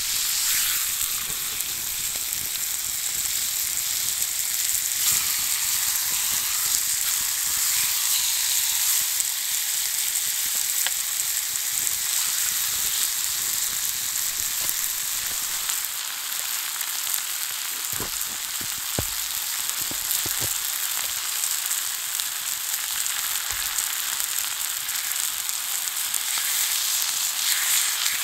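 Beef steaks sizzling on a flat stone heated over a campfire: a steady high hiss, with a few short clicks about two-thirds of the way in.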